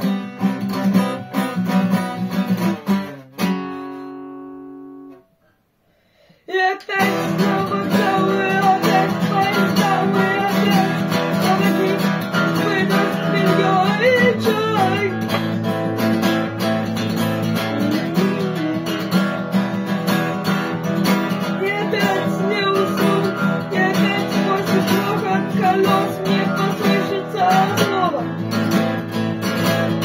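A cutaway acoustic guitar strummed in chords. About three seconds in, one chord is left to ring and fade out, followed by a second or so of silence. The strumming then starts again and goes on steadily.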